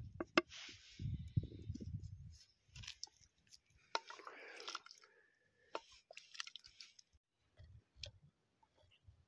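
Food being served from steel cooking pots onto a paper plate: a spatula and ladle knocking sharply against the pot rims a few times, with scraping and rustling as rice and dal are scooped out.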